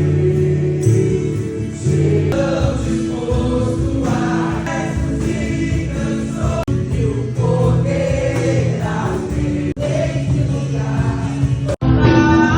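A church choir or congregation singing a worship song together, with sustained sung notes, broken by a few abrupt cuts.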